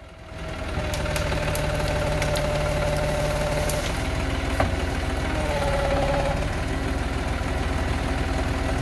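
John Deere 5303 tractor's diesel engine revving up in the first second, then running steadily under load as the tractor pushes its front loader into a brush pile. A whining tone over the engine shifts in pitch about halfway through.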